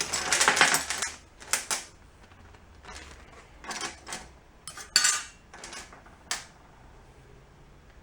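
Small loose metal engine parts, which look to be cylinder-head parts from a Honda Cub 50 engine, clinking and rattling as they are handled. A dense clatter comes in the first second, then a few separate clinks, and it stops after about six and a half seconds.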